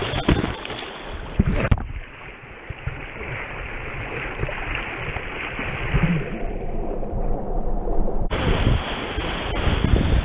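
Rushing river water and rapids. A few sharp knocks come in the first two seconds. The sound then goes dull and muffled for several seconds, and the full rush of whitewater returns about eight seconds in.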